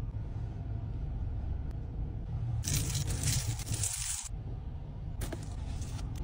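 Crunchy crumb topping poured from a paper carton into a paper cup, a rustling pour lasting about a second and a half, with a shorter rustle near the end, over a steady low hum.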